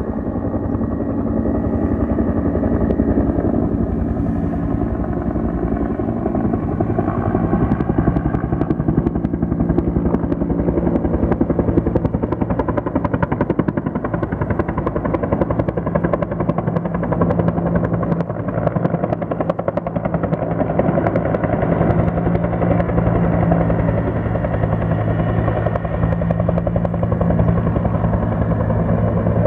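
Firefighting helicopter flying low over the water, its rotor beating in a rapid, steady pulse over the engine's drone, growing louder over the first few seconds.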